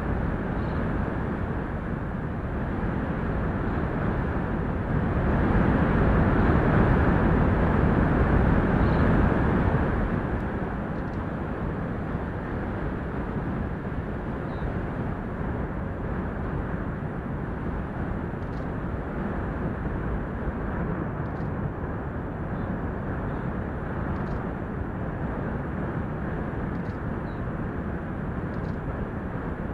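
Steady rushing roar of wind and heavy surf, swelling louder for several seconds about five seconds in.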